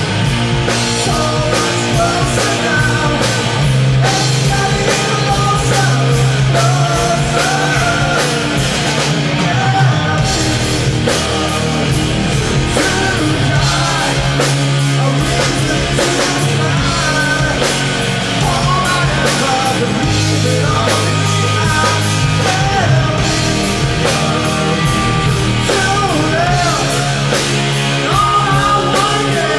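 Live rock band playing: a male lead singer sings over electric guitar, bass guitar and drums.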